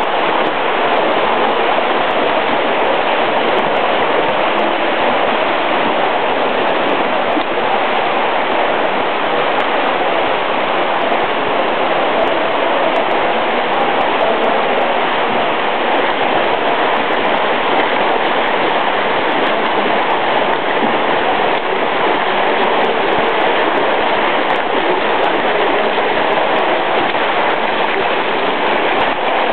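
Steady, loud rushing noise of an indoor swimming-pool hall, like running water, unchanging throughout.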